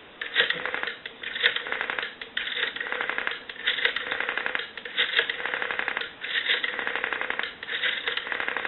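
Rotary dial on a candlestick telephone being wound and released digit after digit. Each return spring-back sends out a rapid train of pulse clicks, about seven digits in a row. The dial has just been cleaned, oiled and adjusted and now runs back freely.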